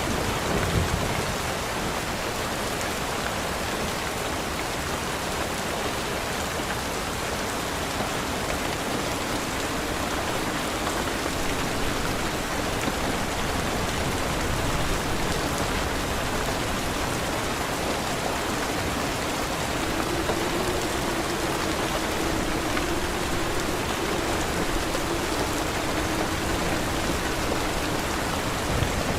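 Steady rain falling and pattering on surfaces, an even hiss with no letup.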